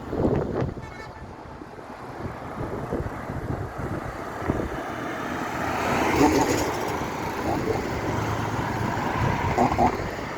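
Road traffic passing on a bridge, one vehicle swelling to its loudest about six seconds in, with wind buffeting the microphone.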